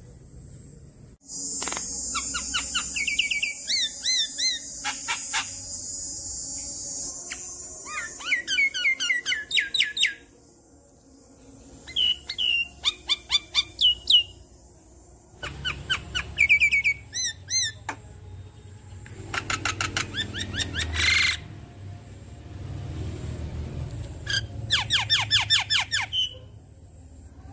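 Javan myna singing in bursts of rapid, repeated chirps and whistled notes, with harsh rasping calls among them, broken by short pauses.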